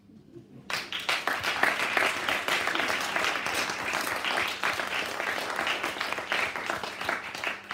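Small audience applauding a poem, starting suddenly about a second in, keeping up a steady patter of claps, and dying away near the end.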